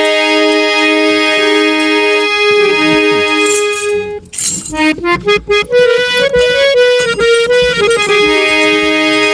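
Harmonium playing an instrumental interlude: held reedy chords, broken about four seconds in by a few sharp drum strokes and a short stepping melody, before the held chords return near the end.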